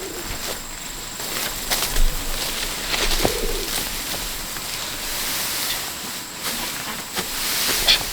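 A bird gives a short, low cooing call about three seconds in, over a steady hiss with scattered clicks.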